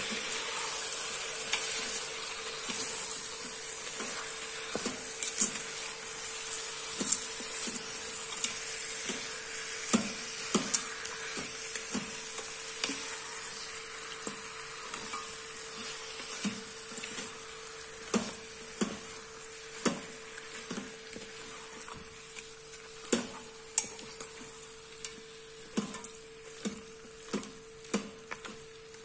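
Spiced chicken pieces sizzling in hot oil in an Instant Pot's stainless steel inner pot while a wooden spoon stirs them, knocking irregularly against the pot. The sizzle slowly dies down, and the knocks come more often in the second half, over a steady hum.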